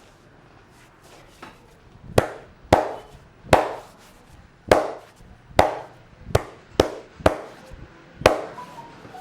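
Hand percussion of an Indian head massage: a run of about nine sharp, loud slaps of the masseur's hands on the head and shoulders, a little uneven, roughly one every two-thirds of a second.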